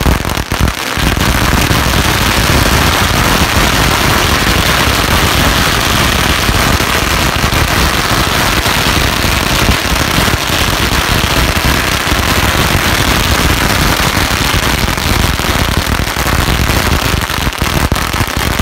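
Firecrackers exploding in a dense, rapid, unbroken barrage of loud bangs, picking up again after a brief gap just under a second in.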